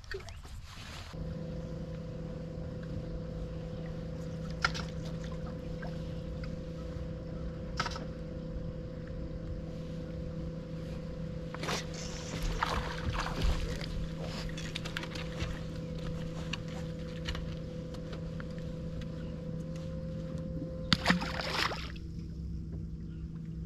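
Electric trolling motor humming steadily, starting about a second in, with a few sharp clicks and short rustles of rod and reel handling over it.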